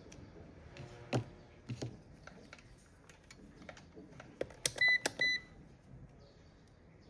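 Two short, high electronic beeps about a third of a second apart, a little after halfway. A few light knocks and clicks come before them.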